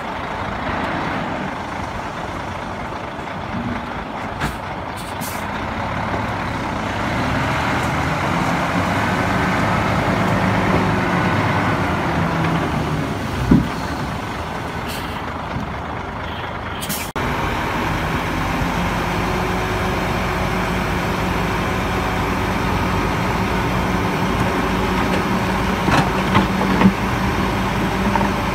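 Hyundai heavy dump trucks' diesel engines running steadily while their hydraulic hoists tip the beds and soil and rock spill out. A single thump comes about 13 seconds in, the sound changes abruptly near the middle, and a few short knocks come near the end.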